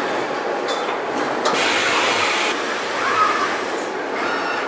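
Car-factory body-shop machinery running as a steady mechanical din. A burst of hiss comes about a second and a half in, and two short whines that rise and fall come near the end.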